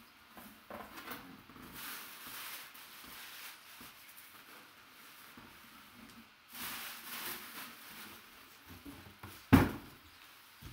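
Tissue paper and a cloth shoe bag rustling as they are handled, with one sharp knock about nine and a half seconds in, louder than the rest.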